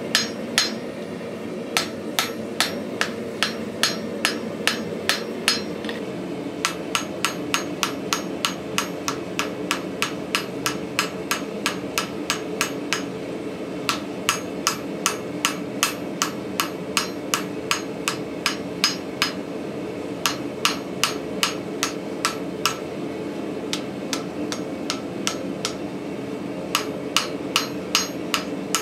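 Hand hammer striking a glowing cable-Damascus axe billet on a steel anvil, forge-welding it, about two to three sharp ringing blows a second in several runs with short pauses. A steady hum lies underneath.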